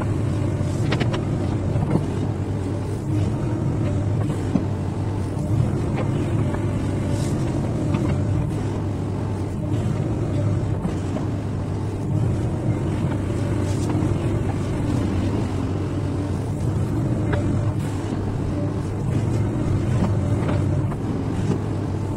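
XCMG XE215C crawler excavator's diesel engine running steadily under hydraulic load as the machine swings and digs. A few sharp clicks and clatters of stone and gravel against the steel bucket sound over it.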